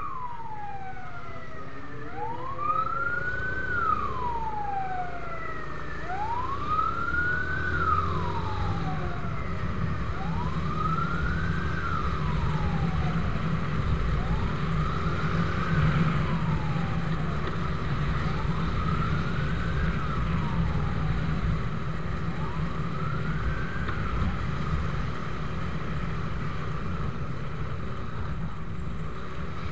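Fire engine siren wailing, each sweep rising and then falling about every four seconds, growing fainter and dying away a few seconds before the end. A motorcycle engine and wind rumble run underneath.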